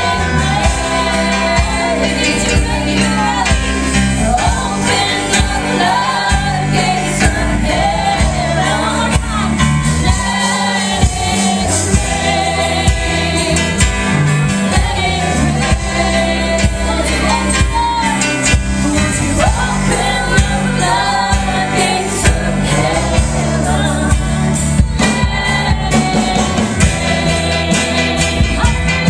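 Live worship music: women singing a gospel-style song over instrumental backing with a steady bass and a regular beat.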